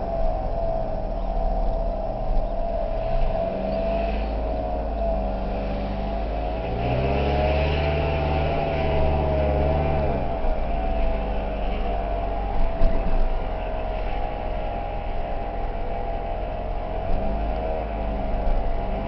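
Chevrolet Cavalier Z24 with an M45 supercharger being driven, its engine and supercharger running with the pitch rising and falling several times as it speeds up and eases off. Within it is an unidentified strange noise that the owner is trying to track down.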